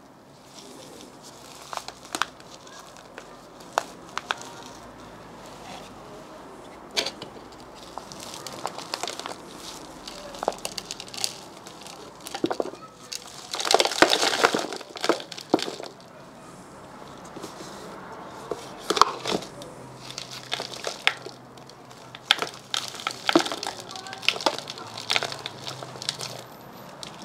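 Potting soil and roots of a Syngonium Pixie crackling and rustling as gloved hands work the root ball out of its pot and tease it apart, with scattered clicks and a denser burst of rustling about halfway through.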